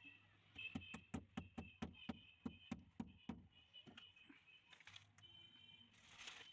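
Hammer striking a steel chisel into brick masonry, chasing a groove in a wall for a pipe: about a dozen quick blows, roughly four a second, stopping about three seconds in. A short scrape follows near the end.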